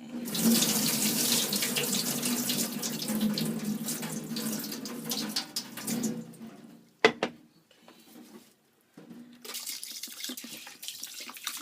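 Tap water running into a bowl of rice for about six and a half seconds, then cut off, for another rinse because the water is still cloudy. A sharp knock follows about a second later, then softer, uneven water sounds from about nine seconds in as the rice is stirred.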